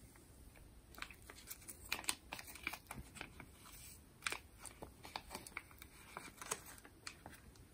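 Small plastic bag crinkling and crackling in the hands as it is opened and tipped to pour out sand, with many quick scattered crackles.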